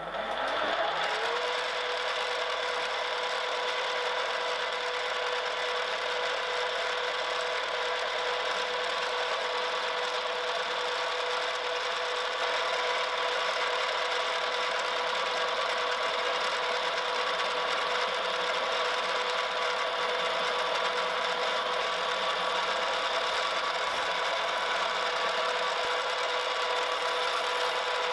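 Milling machine spindle starting up, its whine rising and settling within about a second, then running steadily while the end mill takes a light cut along a spiral groove in a shaft. The sound gets a little louder about halfway through.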